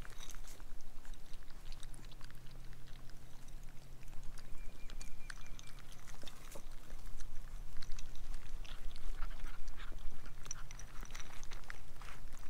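Young Great Pyrenees puppies lapping and slurping from a metal bowl of watery food: a steady patter of small, irregular wet licks and clicks.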